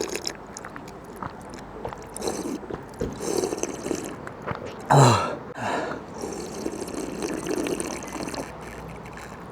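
Water running and trickling from a public drinking-water tap. About five seconds in there is a brief low voice sound that falls in pitch.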